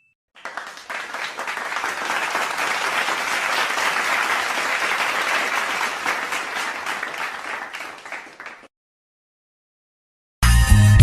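Applause sound effect: a crowd clapping, swelling and then fading, cut off about eight and a half seconds in. After a short silence a music track starts near the end.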